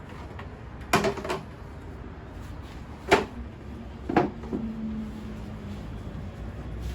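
Three sharp knocks, the first about a second in and the others about two and three seconds later; the last leaves a low ringing hum for a moment.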